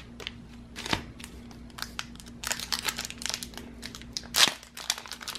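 A foil Pokémon TCG booster-pack wrapper crinkling and crackling as it is handled, with a sharp crackle about a second in and the loudest one about four and a half seconds in.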